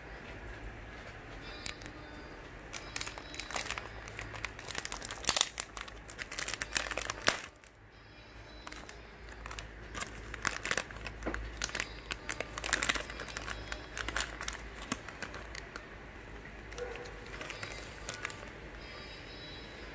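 Thin plastic wrapping of cotton-bud packs crinkling as the packs are handled, in irregular bursts that are loudest in the first half, stop briefly just before halfway, then resume more lightly. A faint low hum lies underneath.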